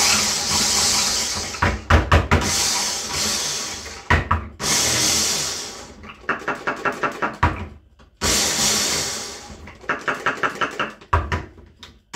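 Corded electric mini chopper (multi-chopper) running in repeated pulses of about two seconds each, chopping an onion very fine. Between the pulses come short runs of rapid clicking.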